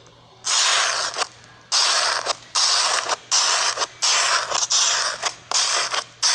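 Repeated scratchy rubbing or scraping, about seven strokes of under a second each, starting about half a second in.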